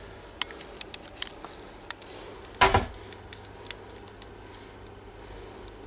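Quiet small-room tone with scattered light clicks and soft breathy hisses, and one short, louder low sound about two and a half seconds in.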